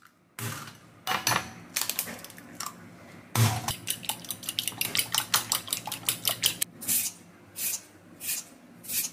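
A few knocks at first, then a metal spoon beating eggs in a glass bowl, with quick clinking against the glass. Near the end, kitchen scissors snip chives four times.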